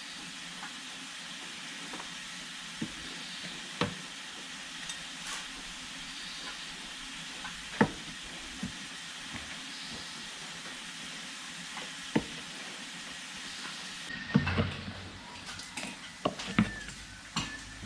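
Steady hiss of rain, with a few sharp knocks now and then and a busier run of knocks and thuds in the last few seconds.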